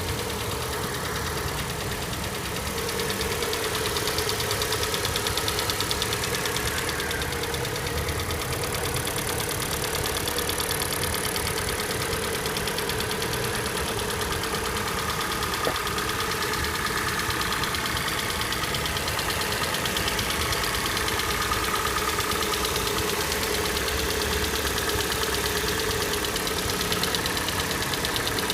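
Hyundai/Kia G4NA (Nu 2.0 MPI) four-cylinder petrol engine idling steadily with a rapid, even knock running through it: the engine knock the owner is recording. A single brief click about halfway through.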